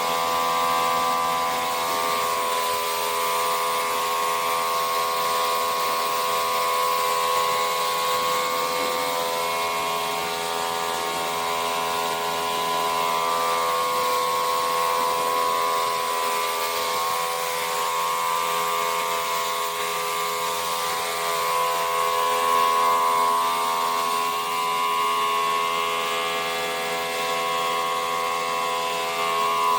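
A steady motor whine made of several unchanging tones, running without a break.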